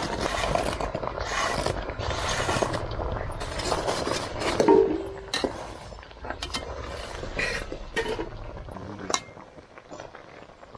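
A metal spoon stirring in a cooking pan, scraping for the first few seconds, then a run of separate sharp clinks against the pan.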